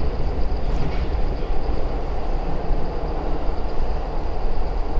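Steady low rumble of a Joetsu Line train running away down the rail tunnel, carried back along the tunnel, with a faint steady high tone over it.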